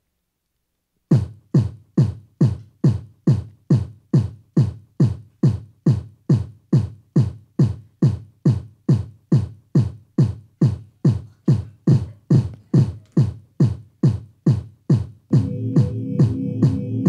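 Electronic kick drum from a synthesizer or looper, starting about a second in and repeating steadily a bit over twice a second, each thump dropping in pitch. Near the end sustained synthesizer chords join the beat.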